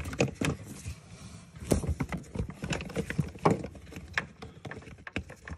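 Gloved hands working the plastic connectors and wiring harness at the engine computer (DME): irregular clicks, taps and rustling, with a few louder knocks.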